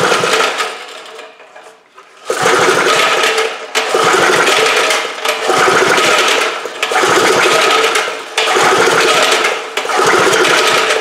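5 hp Briggs & Stratton flathead engine being cranked by repeated pulls on its recoil starter rope, about five or six pulls in a row, each a short run of whirring mechanical turning. It is turning over without firing, with a compression gauge in the spark-plug hole, during a compression test.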